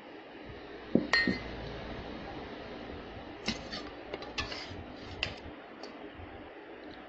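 Metal spoon clinking against a tall drinking glass while mango cubes are spooned in: one loud ringing clink about a second in, then a run of lighter taps and clicks a few seconds later.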